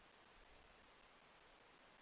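Near silence: a faint, steady background hiss.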